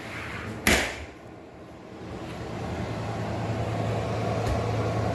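A single sharp knock about a second in, then the shed's refrigeration unit running with a steady mechanical hum that builds up over the next couple of seconds and holds.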